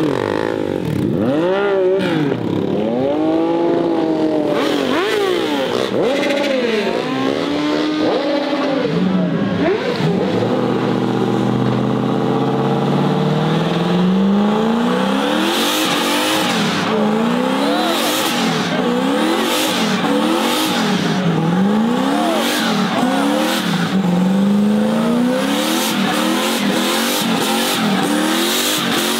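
Car engine revving hard, its pitch swinging up and down again and again, with one long climb in the middle. In the second half it rises and falls about once a second, with sharp bursts of tyre squeal, as a car does burnouts and drifts.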